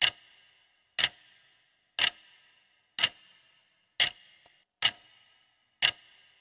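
Clock-tick sound effect for a quiz countdown timer: seven sharp ticks, about one a second, each with a short ringing tail, counting down the seconds left to answer.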